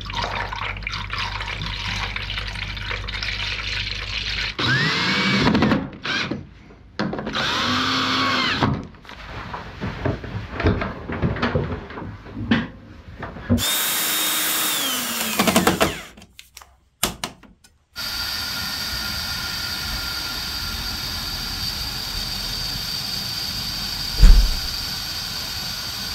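Coolant pouring through a filler funnel into the radiator. Then a cordless drill-driver runs in short bursts, its pitch rising and falling as it drives screws into a headlight surround. From about two-thirds of the way in comes a steady hiss of compressed air through a tyre inflator, with one sharp knock near the end.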